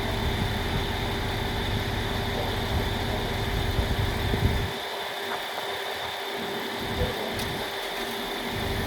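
A vehicle engine idling steadily, with a low rumble that drops away about halfway through and comes back near the end.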